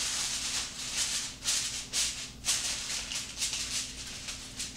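Aluminum foil crinkling and crackling in a series of short, irregular bursts as it is pressed and crimped down over the rim of a foil baking pan.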